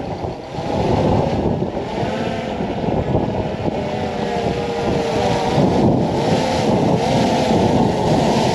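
Strong wind buffeting the microphone: a loud, steady rumble with a faint wavering whistle through it.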